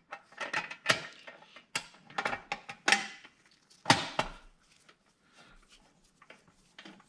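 Clinks and taps of small screws and a screwdriver against the engine's fan shroud as the shroud screws are started by hand. A handful of sharp clicks in the first four seconds, then fainter handling.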